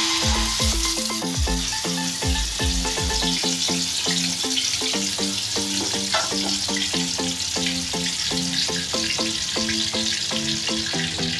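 Blended chilli paste frying in hot oil in a wok, a steady hiss of sizzling, under background music with a bass beat that drops out about three seconds in.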